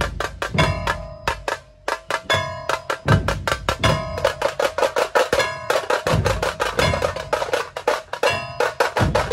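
Dhol-tasha troupe playing: rapid, sharp stick strokes on tashas over deep dhol beats, in a fast driving rhythm.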